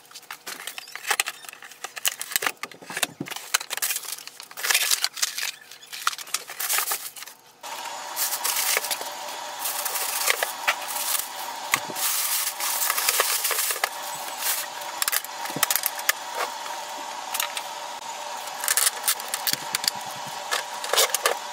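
Packing being handled by hand: a plastic bag crinkling and rustling, and foam packing pieces and tape being pulled off a printer, making many sharp clicks and crackles. A steady hum comes in about a third of the way through and stays under the handling noises.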